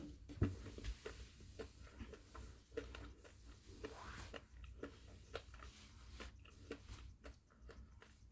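Faint chewing of a chocolate bar, with small irregular crunches and clicks.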